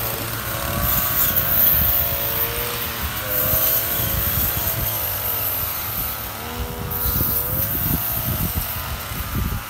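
Petrol brush cutter engine running while cutting grass, its pitch rising and falling as the throttle is worked.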